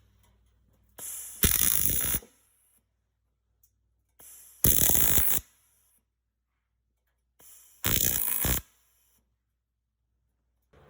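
Robotic MIG tack welds, three in a row about three seconds apart. Each is a brief crackling arc burst of under a second, with a faint sound just before each arc strikes.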